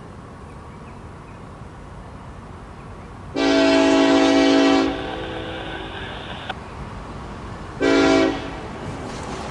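Norfolk Southern diesel locomotive's air horn blowing a chord, one long blast a few seconds in and then one short blast near the end, over a steady low rumble. It is part of the long-long-short-long grade-crossing signal.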